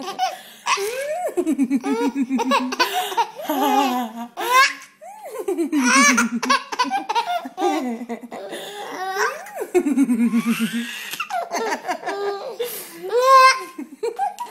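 Baby laughing in repeated bursts with short breaths in between.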